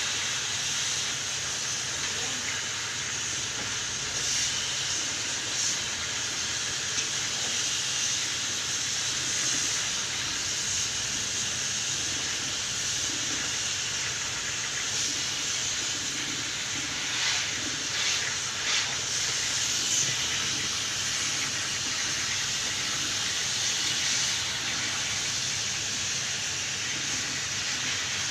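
Pressure-washer water jet spraying into a wall-mounted air conditioner inside a cleaning bag: a steady high hiss, with a few short louder spurts a little past the middle.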